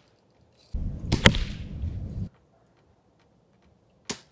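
BB gun shots: about a second in, a second and a half of rustling handling noise with one loud sharp clack, and near the end a single short, sharp snap of the gun firing.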